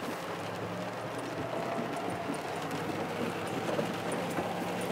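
Steady engine hum and road noise inside the cab of a Toyota Tundra pickup driving slowly along a muddy dirt track, with faint scattered ticks.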